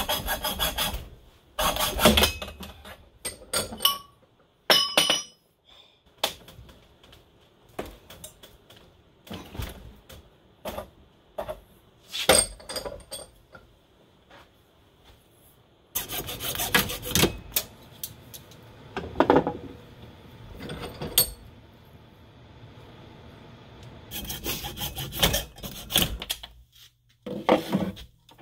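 Hand hacksaw cutting a workpiece clamped in a bench vise, in bouts of back-and-forth strokes, with clinks and knocks of tubing being handled in between. The longest bouts of sawing come at the start, a little past the halfway point, and near the end.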